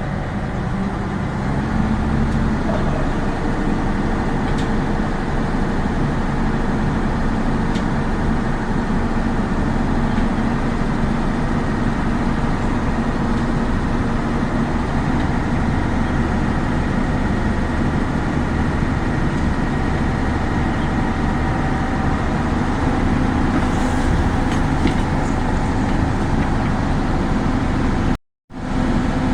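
Big tipper truck's engine running steadily, with a brief break to silence near the end.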